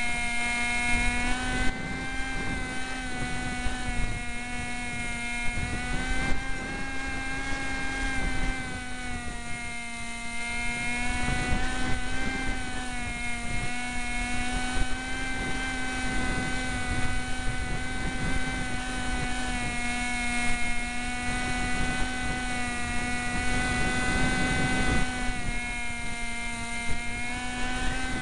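Small electric motor and propeller of a Cox SkyCruiser RC plane, recorded from a camera on the plane: a steady buzzing whine at near full power, its pitch wavering slightly, over wind buffeting the microphone.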